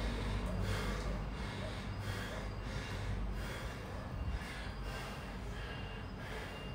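A man breathing hard, panting quick deep breaths about one every two-thirds of a second, over a low steady hum. He is winded from a round of burpees.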